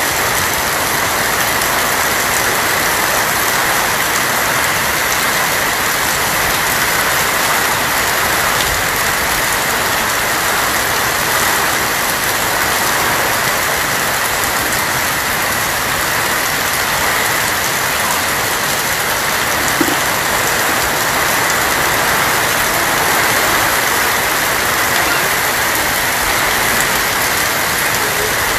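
Steady heavy rain falling on a tin roof, a dense, unbroken patter.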